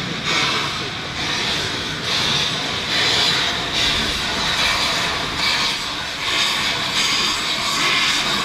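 BR Standard Class 9F steam locomotive 92214 moving off slowly with its cylinder drain cocks open. A heavy hiss of steam swells with each exhaust beat, roughly once a second.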